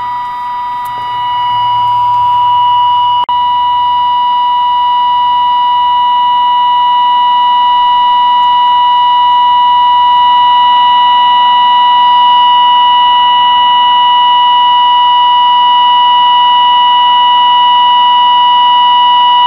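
Steady test tone from a Healing 503E valve radio's speaker, the signal fed in for alignment: one unchanging pitch near 1 kHz with overtones. It grows louder over the first few seconds as the tuned circuits are adjusted, with a short click about three seconds in.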